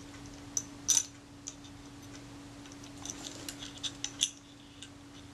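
Small, light metallic clicks and taps of tools and camera parts as the shutter release shaft and its spring are worked loose in a Kodak Retinette II. The loudest click comes about a second in, with a quick run of clicks a few seconds later, over a steady low hum.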